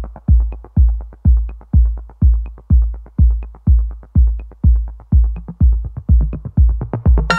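Electronic background music: a steady bass-drum beat at about two beats a second, with a light tick on every other beat. A fuller pitched part comes in near the end.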